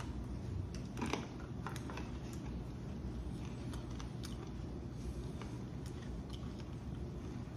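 Close-miked eating sounds: chewing with scattered small clicks and crunches, one louder about a second in, over a steady low hum.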